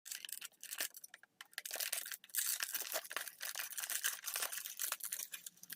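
Toy packaging being opened by hand: dense, irregular crinkling and tearing of wrapping.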